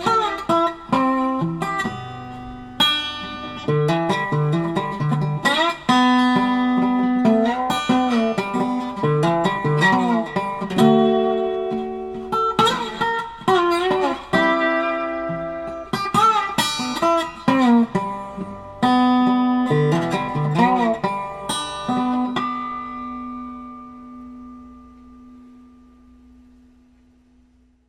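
Instrumental background music on plucked guitar, several notes bending in pitch, ending on a last note that rings on and fades away.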